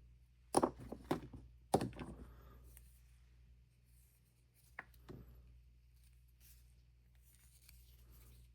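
Hard composite plastic tools being handled on a work surface: three sharp clacks in the first two seconds, then two lighter taps about five seconds in.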